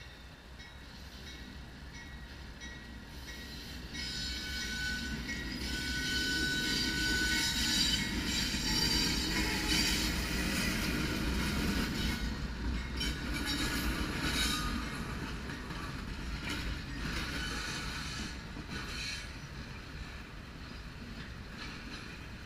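Two GE AC44CW diesel locomotives at the head of a double-stack container train running past, growing louder to a peak about halfway through and then easing. A thin wheel squeal sounds on the approach. As the mostly empty well cars follow, the rumble of their wheels continues, with clicks as they cross the rail joints.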